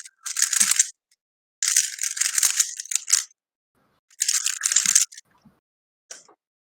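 Rapid plastic clicking and rattling of a speedcube being turned fast, in three bursts that each cut off sharply, and a brief one near the end.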